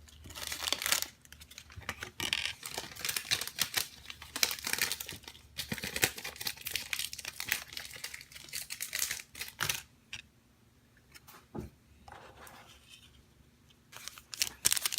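Trading-card pack wrapper crinkling and tearing as it is handled and opened, in dense crackles that die down for a few seconds near the end and pick up again.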